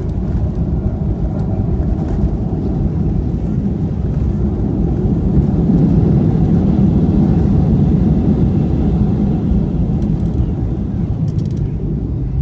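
Boeing 737-700 jet airliner noise: a steady, loud low rumble that swells about halfway through and then eases off.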